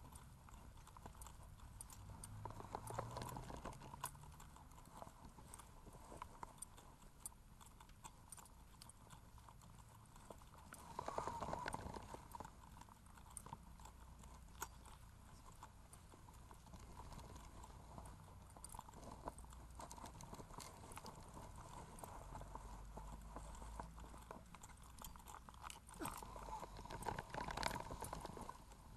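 Faint footsteps walking along a hard lane surface, a steady run of light steps.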